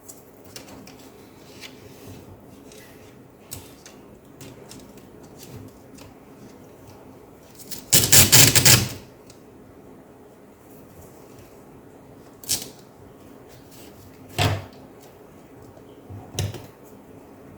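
Hands working on an open laptop: light plastic clicks and taps, a loud rustle lasting about a second about eight seconds in, and three sharp knocks in the second half.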